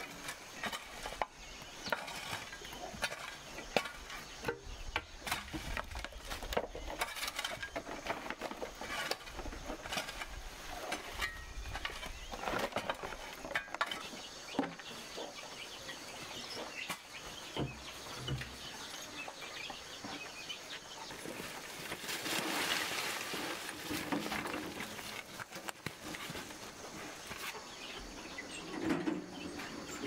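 Hand tools working a dry dirt yard: irregular scrapes and knocks of a shovel, hoe and broom against soil, wood scraps and leaf litter, with a longer stretch of scraping about two-thirds of the way in.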